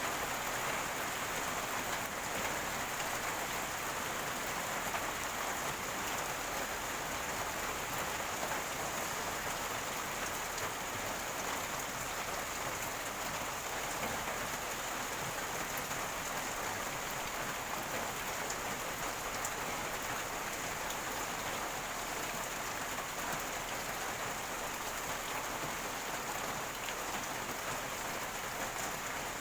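Steady rain water falling and gurgling, an even wash of noise with fine scattered drop ticks, over a steady high-pitched hum.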